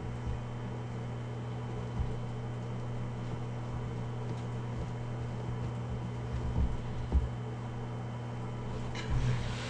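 Steady low hum with a few soft knocks, and a short rustle near the end, as hands fit coax cables and connectors into a foam-lined hard case.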